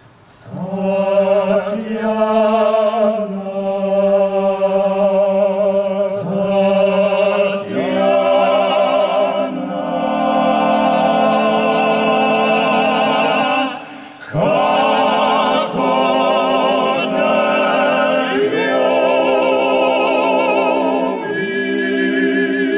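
Male vocal ensemble of six singing a cappella in harmony, holding chords with vibrato. The singing breaks off briefly a little past halfway, then resumes and dies away at the end of the phrase.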